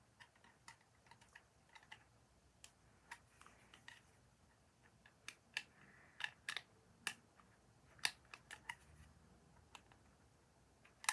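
Plastic bendy fidget tubes being bent, stretched and fitted together, giving irregular sharp clicks, with several louder clicks in the second half.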